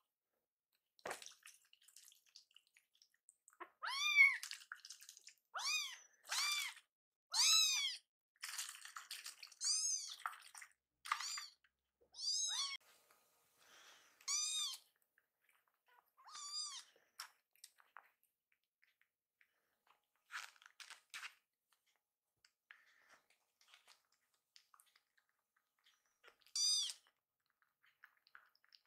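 Young kittens meowing: about a dozen short, high-pitched cries that rise and fall, coming thick and fast for the first half and then thinning out to one more call near the end. They are the hungry cries of kittens wanting their bottle of milk while another kitten is being fed.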